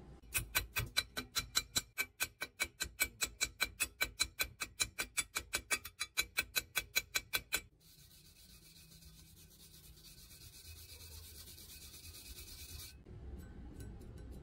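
Chipping hammer rapidly tapping slag off a fresh stick weld where a steel pipe meets a steel plate, about five sharp metallic taps a second for seven or eight seconds. It stops suddenly and gives way to a wire brush scrubbing the weld bead in a steady hiss for about five seconds.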